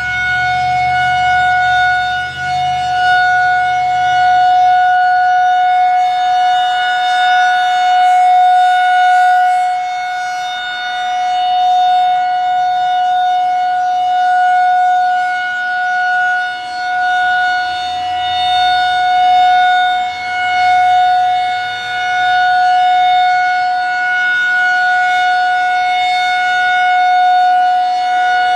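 Federal Signal 2001-SRN single-tone chopper siren sounding its steady Alert tone during a siren test. The pitch holds steady while the loudness swells and fades every few seconds as the rotating head sweeps past.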